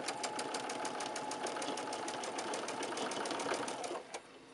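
Electric home sewing machine stitching a quarter-inch seam at a steady speed: an even motor hum with rapid, regular needle ticking. It stops about four seconds in, and a couple of single clicks follow.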